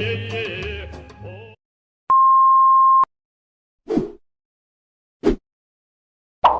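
A music clip with singing fades out, then a single steady high beep of about one second, the classic censor bleep. Three short separate sounds follow, the loudest near the end.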